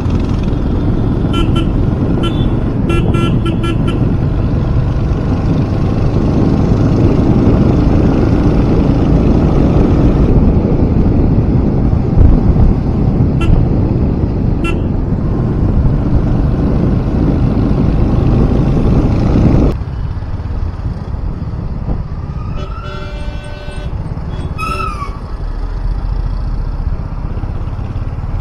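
Royal Enfield Hunter 350's single-cylinder engine running under way, mixed with loud wind rush, while vehicle horns toot in short beeps in the first few seconds. The loud rush drops off suddenly about two-thirds in to quieter traffic, and a couple more horn toots with bending pitch sound near the end.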